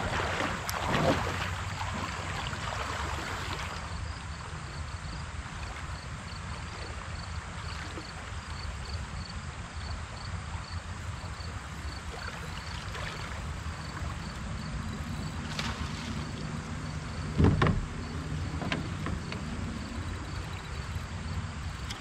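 Outdoor river surroundings around a kayak: a steady low rumble of water and wind with a faint, fast, regular high ticking for the first half. A few short knocks stand out, the loudest about seventeen seconds in.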